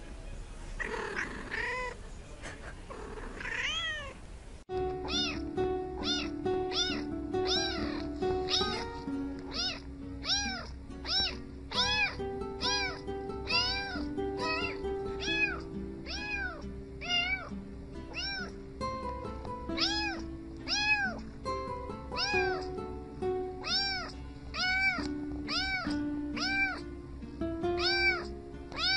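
A cat meowing a few times up close, then, after a cut, a tabby kitten meowing over and over, one to two short meows a second, along with music of held notes.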